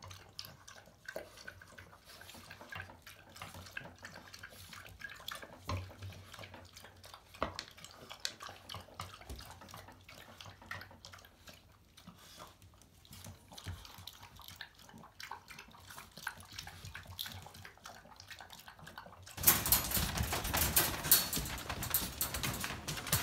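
French bulldogs drinking and eating from their bowls: faint, irregular lapping and small clicks. About three-quarters of the way through, a much louder stretch of rustling and clattering noise begins suddenly.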